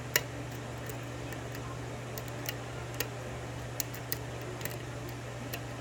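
Scattered small metallic clicks of a hook pick working the pin stack of a five-pin Union lock, irregular and a second or so apart, over a steady low hum.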